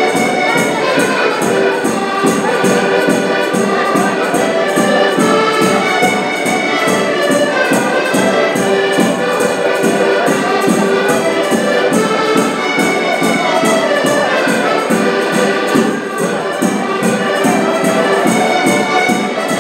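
An ensemble of diatonic button accordions playing a traditional Portuguese tune together, with a rope-tensioned drum keeping a steady beat. The music dips briefly in level near the end.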